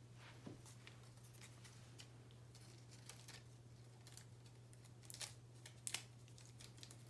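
Faint rustling and light clicks of sticky tape and a paper leaf being handled, with a few sharper crinkles about five and six seconds in, over a low steady hum.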